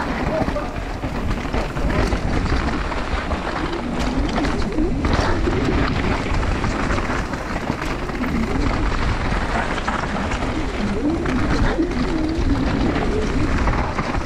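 Mountain bike ridden fast down a downhill trail: a steady rush of tyre, rattle and wind noise on the microphone.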